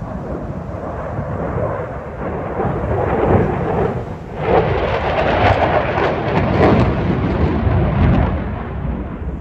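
Eurofighter Typhoon's twin EJ200 turbofans on full afterburner: a loud jet roar that swells sharply about four and a half seconds in, crackling, then eases near the end.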